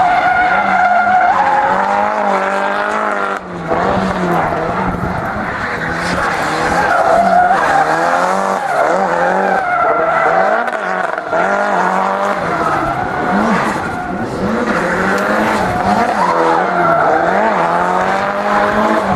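A drift car's engine is held at high revs, its pitch wavering up and down as the throttle is worked, while the rear tyres screech through a long, smoking drift.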